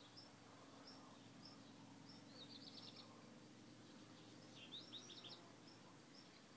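Faint birdsong: a short high chirp repeated every half second or so, with a quick rapid trill about two and a half seconds in and another about five seconds in, over a faint low steady hum.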